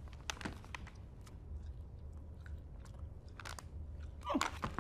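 A man chewing a piece of spicy meat jerky, with irregular small crunching and smacking clicks over a steady low room hum.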